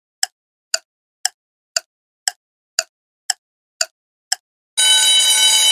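Quiz countdown timer sound effect: clock-like ticks, two a second, then near the end a steady ringing alarm that signals time is up.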